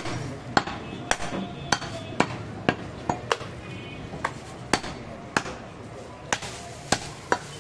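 Heavy cleaver chopping through goat ribs on a wooden log chopping block: a run of sharp chops about two a second, with a short pause a little past three seconds in.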